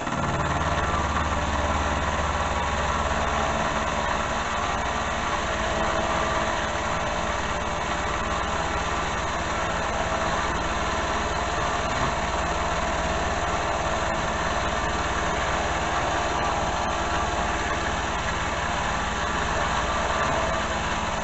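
Metal lathe running at about 1100 RPM under power feed, its tool taking a roughly 1 mm cut along the bar: a steady machine drone that steps up in level as the cut begins.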